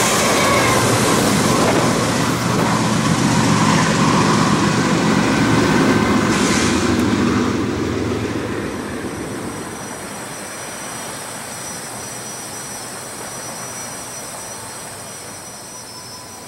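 BNSF freight train's rear diesel locomotives (GE ES44DC distributed-power units) passing close by, with the wheels squealing faintly at first. The sound fades from about eight seconds in as the train pulls away.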